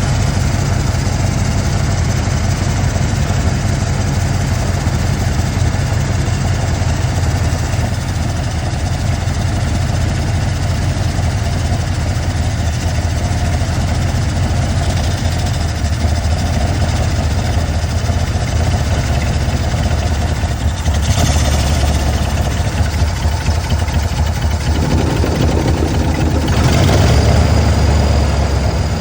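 1996 Ford Bronco's 5.0-litre V8 idling steadily with a multiple-cylinder misfire. The engine gets louder and its note changes for a few seconds near the end.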